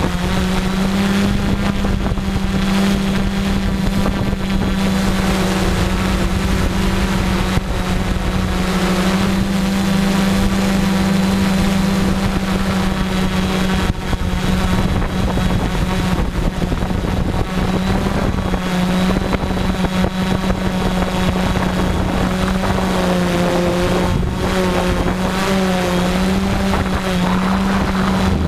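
Steady hum of a hovering multirotor drone's motors and propellers, its pitch wavering slightly, with wind rushing over the microphone.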